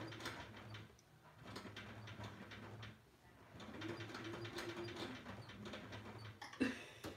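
Electric sewing machine stitching in short runs during free-motion quilting: a steady motor hum with rapid needle strokes, stopping briefly about a second in and again about three seconds in before running on.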